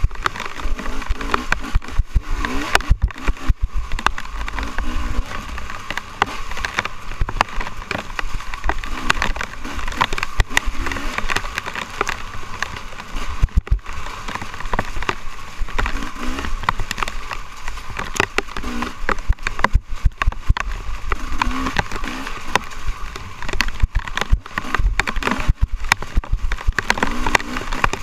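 Dirt bike engine revving up and down over and over as it is ridden hard along a rough, muddy trail, under a constant clatter of sharp knocks and rattles from the bumps.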